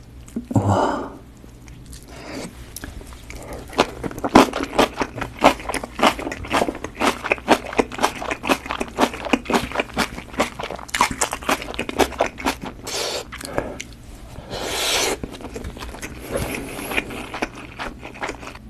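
Close-miked crunching and chewing of napa cabbage kimchi, with many quick crisp crunches between about four and thirteen seconds in and again near the end. There is a short wet sound near the start and a longer noisy sound about fifteen seconds in.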